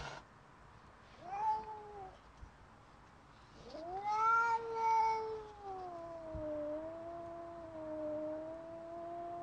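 Domestic cat caterwauling in a territorial standoff with a rival cat: a short yowl about a second in, then a long drawn-out howl from about four seconds in that rises, sinks to a lower, wavering pitch and holds.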